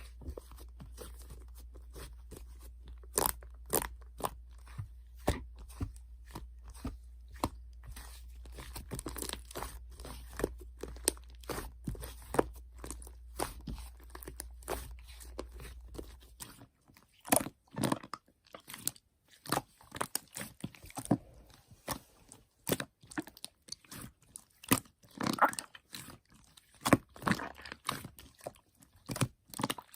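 Slime being squeezed, pressed and poked by hand, giving irregular crackling clicks and pops. A low hum under it stops about 16 seconds in, and the clicks grow louder and more spaced out after that.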